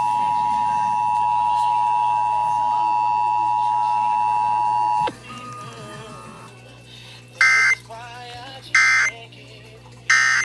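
Emergency Alert System two-tone attention signal, a loud steady tone pair near 1 kHz, that cuts off about halfway through. Three short bursts of EAS SAME digital data tones follow, roughly a second and a half apart.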